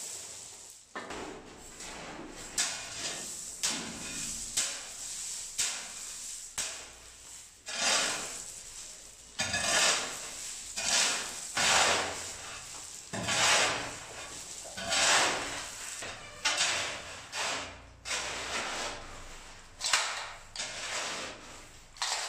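Wet concrete being mixed by hand on a cement floor: gravel and cement scraped and turned over with a tool in repeated gritty strokes, about one a second.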